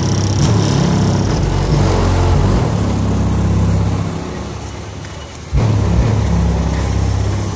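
Heavy bass music pounding from a car stereo's six 12-inch subwoofers, heard from outside the car. The bass fades back about four seconds in, then hits hard again at about five and a half seconds.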